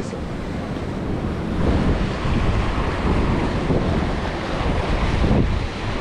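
Heavy sea swell surging and breaking over rocks, with wind buffeting the microphone.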